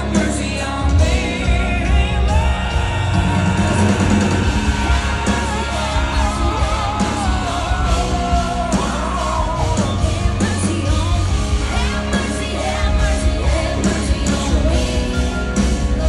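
A live country-rock band playing loudly with drums and bass, and a singer holding long, wavering, belted notes over it.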